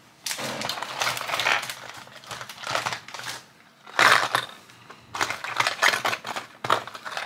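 Hands handling paper and plastic packaging on a desk: crinkling and rustling in about five short bursts, with small clicks and taps.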